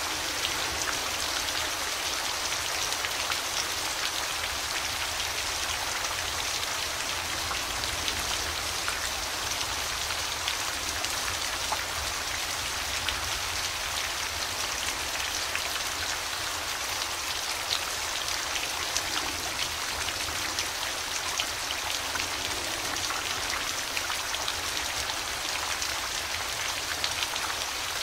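Steady rain falling on a surface, a continuous hiss dotted with many small, distinct drop hits.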